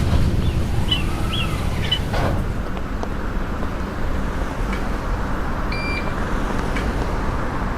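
Steady engine rumble of a London double-decker bus heard from inside, with a single short electronic beep about six seconds in.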